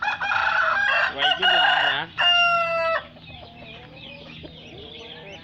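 Caged fighting cocks crowing: loud crows overlapping for about three seconds, the last one held on a single steady note, followed by fainter calls from other birds.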